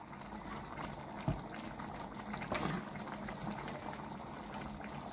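Faint steady bubbling and liquid sounds from a karahi of chicken gizzard and liver curry as mustard oil goes into the gravy, with one soft knock about a second in.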